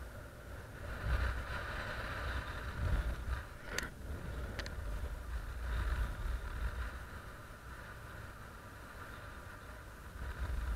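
Wind buffeting a camera microphone in flight under a paraglider: a gusty rumble that swells about a second in and again around six seconds. Two sharp clicks near the middle.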